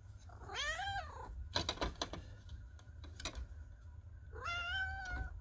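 Chocolate tabby cat meowing twice: a short meow that rises and falls about half a second in, and a longer, steady meow near the end. Between them, a quick run of sharp clacks as she claws at the shutter louvers and pushes them open.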